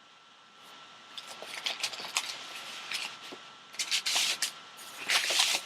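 Packaging being handled by hand as a football is taken out of its box: irregular rustling and crackling that starts about half a second in, with two louder crinkling bursts near four and five seconds in.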